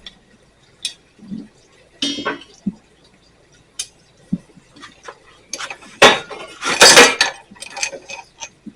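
Steel fence rods and turnbuckles being handled and fitted together: scattered metallic clinks and clanks, with a louder cluster of clanking and rattling about six to seven seconds in.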